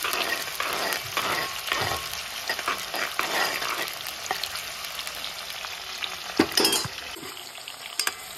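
Banana slices deep-frying in hot oil in a metal wok, sizzling steadily, while a metal ladle stirs them with repeated scrapes and clicks against the pan. One sharper clink of metal on metal comes near the end.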